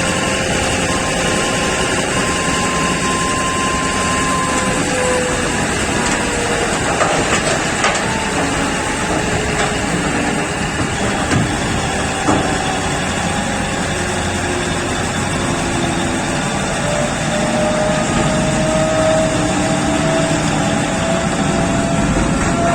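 Heavy mining machinery working, an electric P&H 4100 mining shovel loading a Belaz haul truck: a steady engine drone with several whining tones that slowly rise and fall as the drives work. A few sharp knocks come in the middle.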